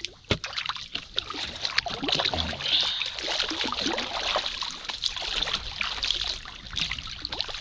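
Paddling on a small river: paddle blades splashing and water trickling off them, with scattered light knocks and one sharp knock about a third of a second in.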